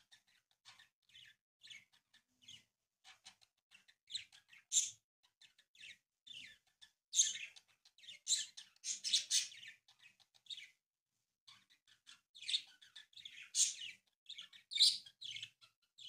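Green origami paper being folded and creased by hand: short, irregular crinkles and rustles, few at first and coming thicker from about four seconds in.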